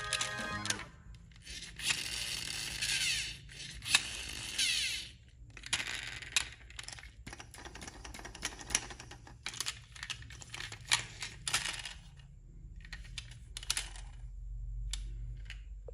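Small electric RC model machine working: a rapid clatter of plastic and metal clicks with stretches of high motor and gear whirring, the loudest of them a whir that climbs in pitch a couple of seconds in.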